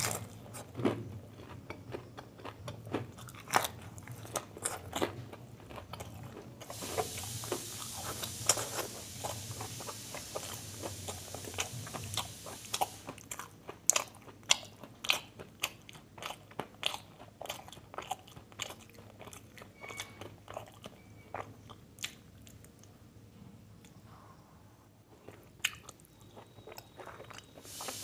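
Close-miked eating of a fried samosa: many irregular crunchy bites and chewing sounds. A steady hiss runs underneath for about six seconds in the first half.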